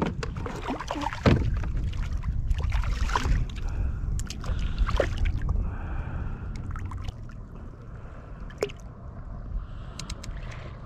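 Water splashing and sloshing beside a kayak as a hooked ladyfish thrashes at the surface while being landed and unhooked, over a steady low rumble, with scattered clicks and knocks, the loudest about a second in.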